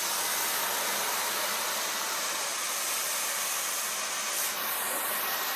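Hotpoint Ultimate Collection Energy Power 4 bagless cylinder vacuum cleaner running at full suction with its brush-roll head on carpet: a steady, airy rushing hiss, with a brief waver in pitch near the end.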